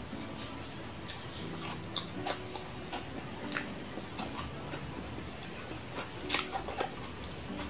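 Close-up eating of crunchy raw vegetable salad (lettuce, onion, cucumber): irregular crisp crunches and mouth clicks while chewing, with a louder cluster about six seconds in.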